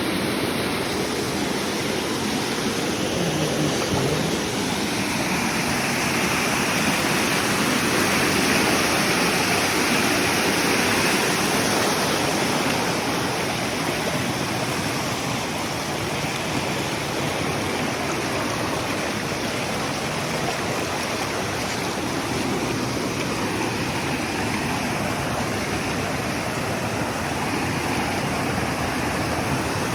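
Mountain stream rushing over rocks: a steady, loud wash of flowing water, a little stronger for a few seconds near the middle.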